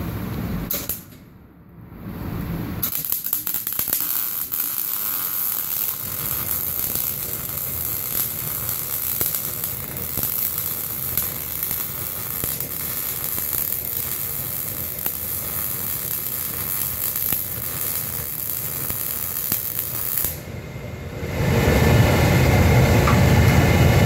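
MIG welding arc, .035 wire under 75/25 argon–CO2 gas, crackling and hissing steadily as a bead is run on a T-joint; it strikes about three seconds in and cuts off near the end. A louder low rumble follows in the last couple of seconds.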